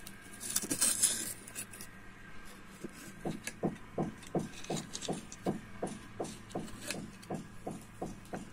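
Kitchen knife sawing back and forth through a baked oat brownie in a ceramic dish, a steady rasping stroke about three times a second that starts about three seconds in. Before that, a brief rustle of the dish and knife being handled.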